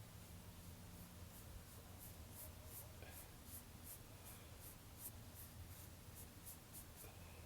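Faint, quick strokes of a paintbrush on canvas, about three or four a second, as acrylic paint is blended in.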